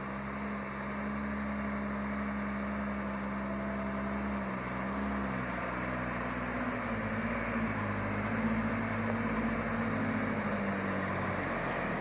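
Large multi-axle mobile crane's diesel engine running steadily as the crane drives. Its pitch dips briefly about four seconds in, then rises a little and holds.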